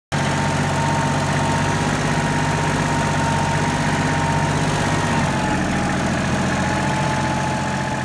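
Tractor engine running steadily as it drives with logs on its front-loader forks, with a thin high whine held over the engine's note.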